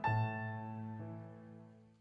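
Soft background piano music: a chord struck at the start rings and slowly dies away, with a quiet note added about a second in, fading almost to nothing near the end.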